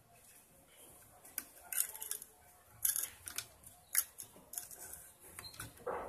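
Irregular light metallic clicks and ticks from the internal shift parts of a Whirlpool washing machine transmission as they are turned by hand into the spin position, lifting the pinion.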